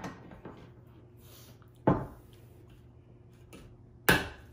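Handheld manual can opener being cranked around a tin can: a few sharp metallic clicks and clunks, the two loudest about two seconds in and near the end.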